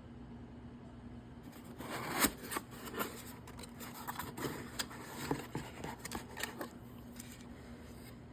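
Packaging being handled and opened by hand: a run of quick rustles and sharp clicks lasting several seconds, over a faint steady hum.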